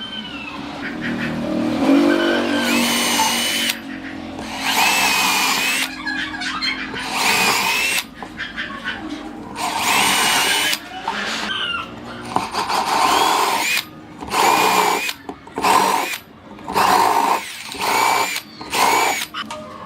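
Small handheld power tool cutting wood in a series of short passes, each lasting a second or two, with the bursts getting shorter and closer together toward the end.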